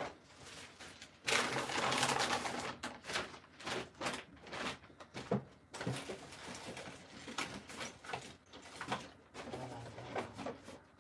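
Rummaging through boxes of stuff: a loud rustling burst about a second in, then a string of clattering knocks and clicks as things are moved about.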